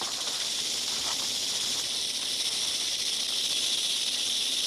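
Western diamondback rattlesnake shaking its tail rattle: a steady, unbroken high buzz, the snake's defensive warning.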